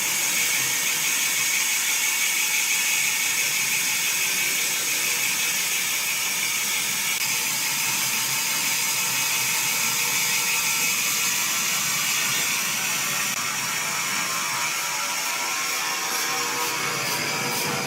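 Woodworking machinery running: a steady, high-pitched mechanical whir with hiss. Regular ticking sets in near the end.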